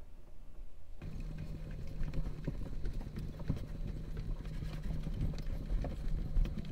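Crochet hook and macrame yarn handled close to the microphone while slip stitches are worked: light irregular clicks and rubbing. A steady low hum comes on about a second in.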